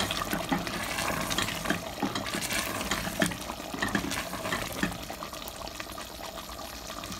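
Thick mutton curry sizzling and bubbling in a steel pot as it is fried further, with a wooden spoon stirring and scraping through it. The stirring clatter is busiest in the first few seconds and the sound eases off toward the end.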